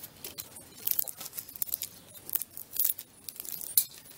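Irregular light clicks and crackles of pine cones, twigs and binding wire being handled as they are wired together into a garland.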